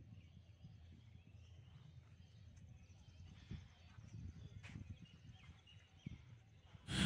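Faint outdoor ambience: a low rumble with a few faint bird chirps. Right at the end a much louder noise starts abruptly.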